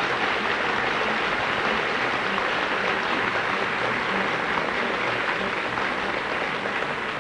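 Large audience applauding steadily, the applause thinning out near the end.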